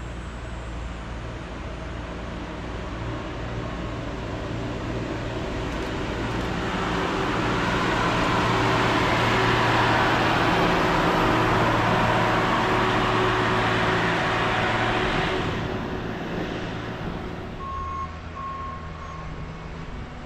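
Diesel engine and steel wheels of a yellow on-track maintenance-of-way machine from a railway tie gang travelling past on the rails, swelling to a peak about ten seconds in and then fading away. Near the end come three short, high warning beeps.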